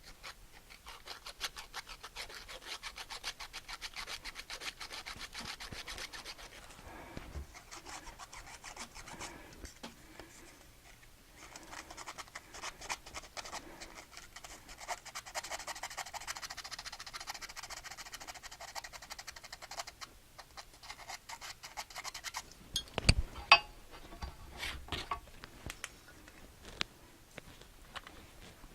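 Fine 500-grit abrasive paper rubbed in quick back-and-forth strokes over small electrical contact points to clean them. The scraping comes in two long spells with a pause between them. Near the end there are a few louder knocks.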